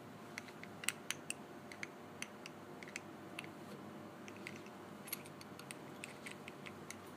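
An Allen key working the screws of a Kovix steel disc lock: faint, irregular small metal clicks and ticks as the key turns and the parts are handled.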